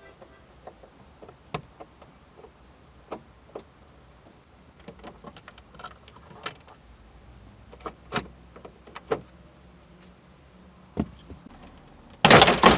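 Scattered light clicks and taps of hand work on a car door's handle and inner parts. A much louder rattling noise starts suddenly near the end.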